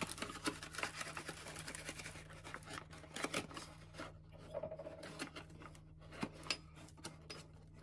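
Faint scraping, rustling and small knocks of flour being scooped and measured with a measuring cup and spatula, over a steady low hum.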